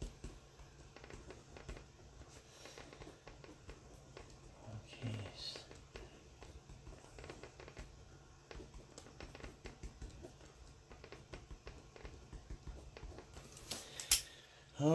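Faint scattered clicks and light rustling from items being handled on a desk, with a few sharper clicks near the end.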